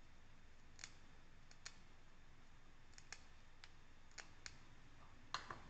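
A scattering of faint, irregular clicks, about ten in all, as thyme sprigs are pulled through the holes of a small plastic herb stripper and the stems catch and snap against the plastic.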